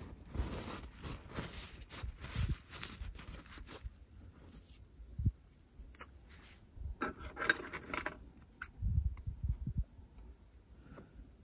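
Tissue paper rustling and rubbing as it is handled for the first few seconds, then quieter handling of small paper decal sheets on a cloth mat with a few light ticks, another rustle partway through and some soft knocks.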